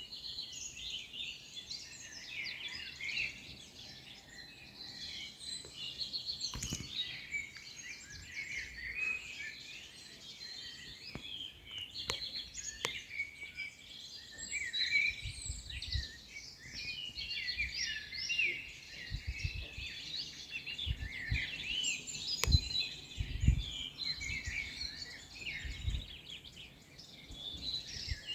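A dense chorus of many small birds singing and chirping over one another without a break. Occasional short low rumbles come in during the second half.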